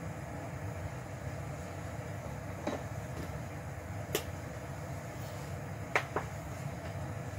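Pot of beef stew simmering under a glass lid on the stove, a steady low rumble as the broth cooks down. A few sharp clicks sound in the second half, two of them close together near the end.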